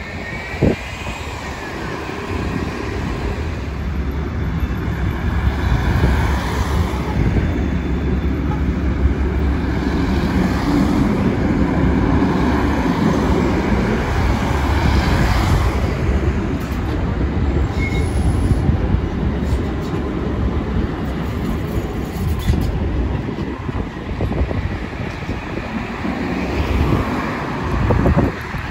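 Articulated low-floor electric trams running past on street track, a steady low rumble of wheels on rail, mixed with passing road traffic.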